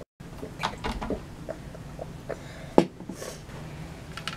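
Table sounds of a meal: a scatter of short clicks and taps from a glass, plate and utensils on a wooden table, the loudest about three seconds in, followed by a brief rustle.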